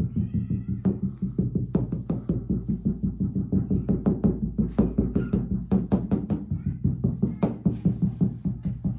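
Background music with a steady electronic drum-machine beat and sustained bass.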